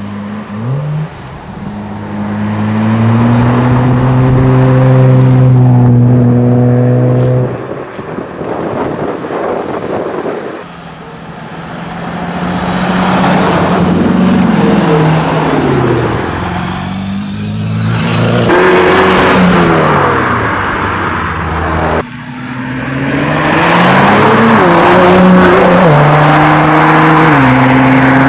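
A sequence of sports cars accelerating hard: a Nissan Skyline R34 GT-R's twin-turbo straight-six revs up and holds high for a few seconds before backing off; then a Chrysler 300C SRT8's V8 revs up and down through several gear changes; then a Nissan GT-R R35 pulls away with rising revs and shifts, loud again near the end.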